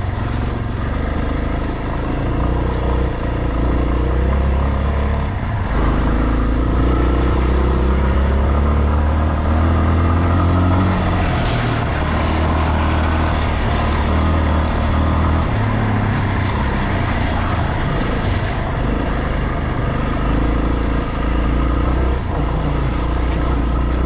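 Yamaha Serow trail bike's single-cylinder four-stroke engine running under way, recorded from on board, its note rising and falling with the throttle.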